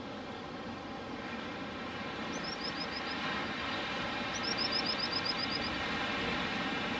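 Multirotor camera drone's motors and propellers whining steadily, growing gradually louder. Partway through, a bird gives two quick runs of short descending chirps, the second longer.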